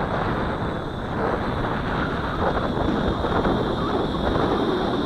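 Strong wind buffeting the camera's microphone: a steady, loud rumbling rush.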